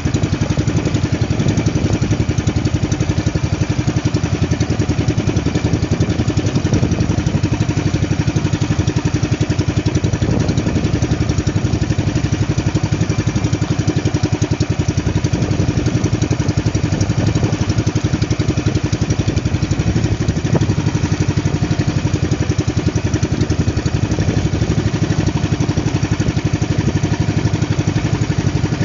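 Small fishing boat's engine running steadily at an even, unchanging speed, as when trolling.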